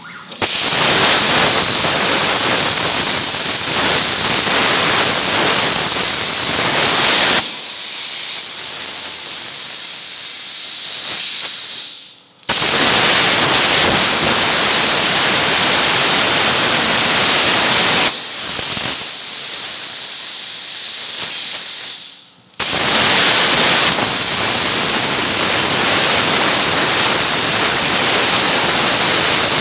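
CNC cutting torch hissing steadily as it cuts through 10 mm metal plate. The hiss grows thinner, dies away twice (near 12 and 22 seconds in), and each time starts again abruptly a moment later.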